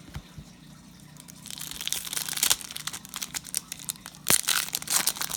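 Plastic trading card pack wrapper crinkling and tearing as it is ripped open, with a few sharp crackles about four seconds in.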